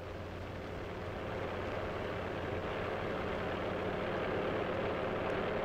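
Aircraft tow tractor's engine running steadily as it tows an aircraft, fading up over the first couple of seconds and then holding level.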